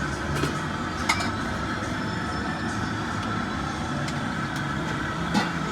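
Steady background din of a busy street-food stall, broken by a couple of sharp clicks or knocks, one about a second in and one near the end.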